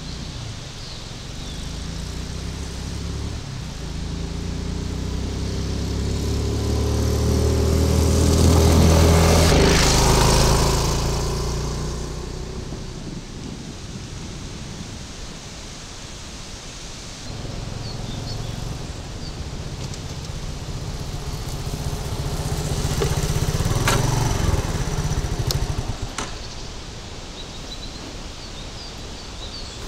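Motorcycle engine passing close by on a dirt track twice: it grows louder to a pass about ten seconds in, its pitch dropping as it moves away, then comes by again with a second loud pass about 24 seconds in before falling back.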